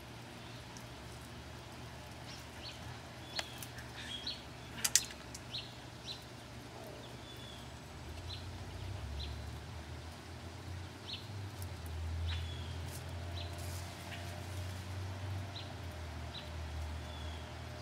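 A small bird chirping over and over, short high calls about once a second. A few sharp clicks come between about three and five seconds in, and from about eight seconds a low rumble of the camera being moved covers the low end.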